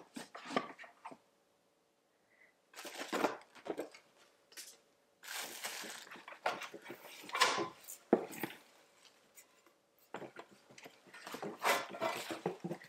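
Packaging being rummaged through and unwrapped by hand to get an item out of a subscription box: irregular rustling, crinkling and light knocks in four bursts with short quiet gaps between them.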